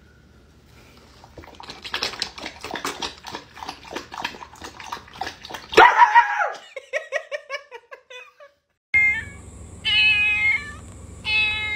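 A person lapping and slurping noisily at a dog bowl, mimicking a dog drinking, then a loud bark-like shout about six seconds in. After a cut, a kitten meows twice, high-pitched.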